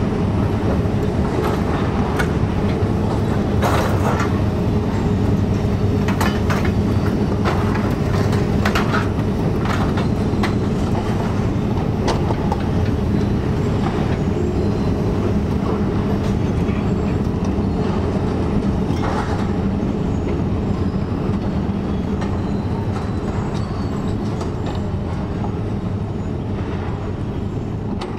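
Demolition excavator's diesel engine running steadily under load, with scattered crashes and clanks as it pulls down steel roof framing and metal sheeting. The noise fades a little near the end.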